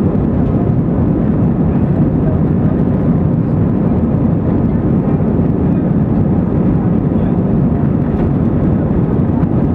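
Airbus A320 cabin noise on the takeoff roll: the jet engines running at high thrust, a loud, steady noise heard inside the cabin over the wing.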